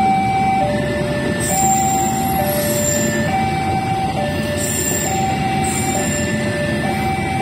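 Railway level-crossing alarm sounding continuously, alternating between two electronic tones, each held just under a second, as a train approaches. A steady low rumble of engines runs underneath.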